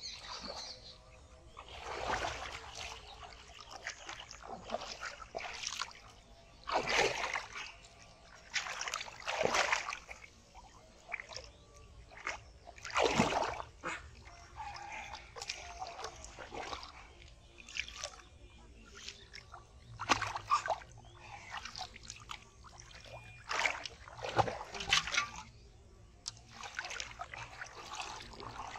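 Repeated irregular splashes and sloshing of shallow muddy water as a fish is grabbed by hand. Near the end, water sloshes in a metal pot as a caught fish is put in.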